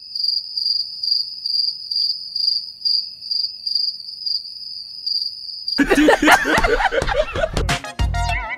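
Cricket-chirp sound effect: a clean, high chirp repeating a few times a second over an otherwise silent track. It is cut off about six seconds in by loud music with a heavy bass beat.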